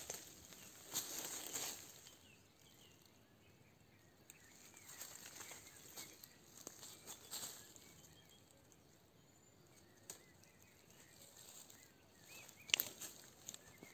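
Rustling and crunching in dry leaf litter and twigs, coming in several short bouts, with a sharp click near the end. Faint bird chirps sound in the background.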